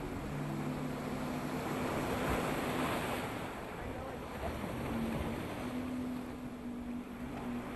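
Surf breaking and washing against a rock seawall, swelling loudest about two to three seconds in.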